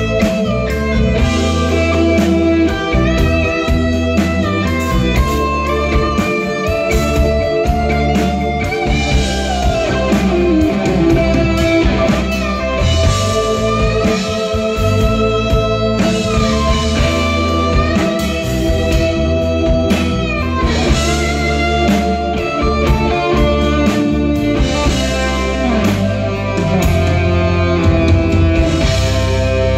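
Live progressive rock band playing an instrumental passage: a guitar melody with bent notes over bass, drums and keyboards.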